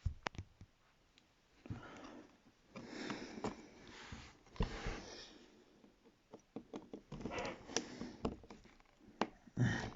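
Hands working on an opened tablet: a few short rubbing, scraping rustles in the first half, then a run of small sharp clicks and taps on plastic parts as a component is pried out.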